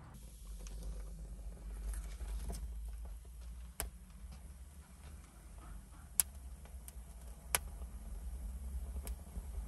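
Kindling catching under a stack of split logs in a brick wood-fired oven: a few sharp, separate crackles of burning twigs over a steady low rumble.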